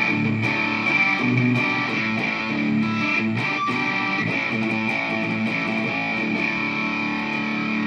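Electric guitar played through a Zoom G5n multi-effects processor on a distorted patch with its chorus switched off, notes sustaining steadily.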